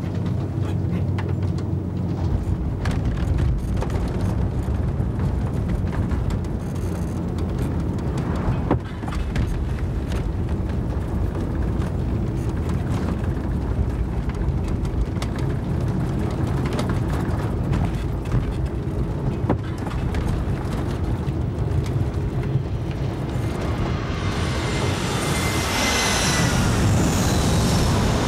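Steady low rumble of a van's engine and road noise heard from inside the vehicle, with small rattles and knocks. About 24 seconds in, a jet airliner's engine noise rises loud over it, its whine falling slightly in pitch as it passes.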